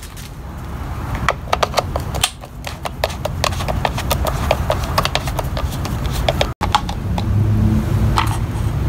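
T20 Torx screwdriver backing screws out of a string trimmer's plastic engine cover: a run of quick clicks, several a second, that stops about six and a half seconds in, over a low steady hum.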